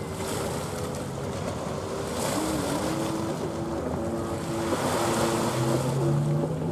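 Small waves washing on the shore with gusts of wind on the microphone. Faint steady tones hang over it and shift in pitch every second or so.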